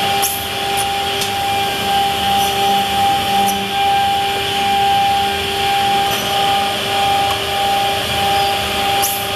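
Cehisa 302 pass-through edge banding machine running, a steady motor whine over an even hiss, with a few faint ticks.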